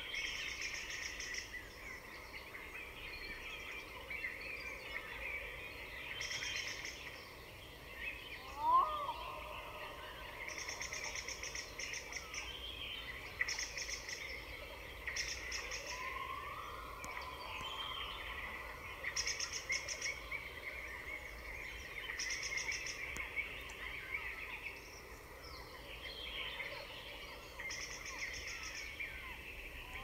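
Birdsong: many birds chirping and calling, with repeated high trills about a second long and a louder falling call just before nine seconds in.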